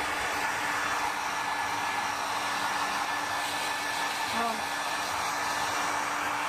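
Handheld hair dryer running steadily on the fur of a puppy being blow-dried after its bath: rushing air with a steady hum and a faint high whine.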